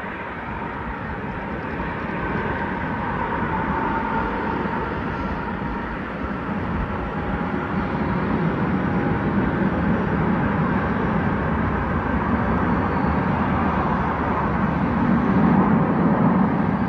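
Jet aircraft engine noise: a steady rush with a faint whine, building up and loudest near the end.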